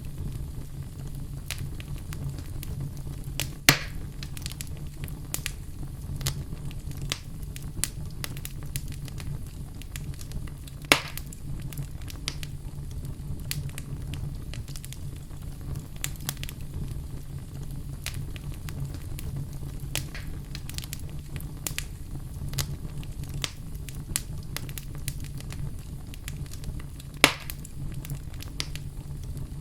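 Wood fire burning in a fireplace, crackling with many small clicks over a steady low rumble. Three sharp, louder pops stand out, spread through the stretch.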